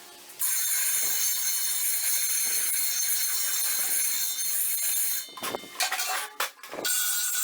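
A power tool running with a steady, high-pitched hiss. It stops about five seconds in, a few knocks follow, and it starts again near the end.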